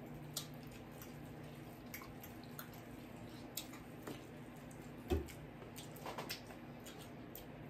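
Faint eating sounds: scattered wet mouth clicks and chewing, with one brief louder sound about five seconds in.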